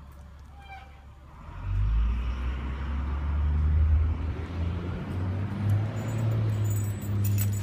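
A motor vehicle's engine running with a low rumble and road noise, coming in about one and a half seconds in and staying loud.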